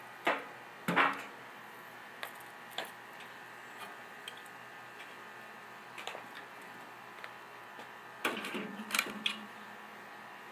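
Split pecan logs being knocked together and set down in a steel smoker firebox: a few sharp wooden knocks and clunks, the loudest pair about a second in and a quick cluster near the end, over a faint steady hum.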